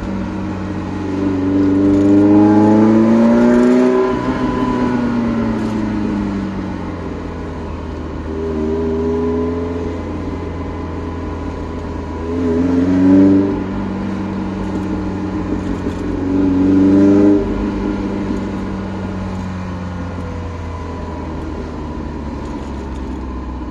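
Ferrari Mondial 3.2's V8 with a custom exhaust, heard from inside the cabin while driving. Revs climb loudly for a few seconds near the start, then ease off, and two shorter surges follow later.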